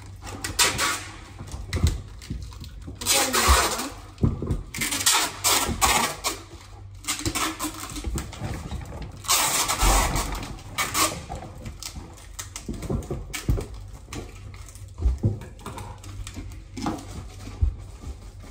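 Irregular rustling and crinkling with occasional light knocks, as of goods and their packaging being handled, with louder bouts of rustling about three seconds in and again near the middle.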